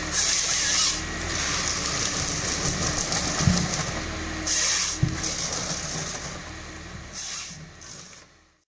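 Ponsse Bear forestry harvester running, its engine a steady drone while the harvester head feeds a log through, with bursts of hissing and scraping and two sharp knocks about three and a half and five seconds in. The sound fades out near the end.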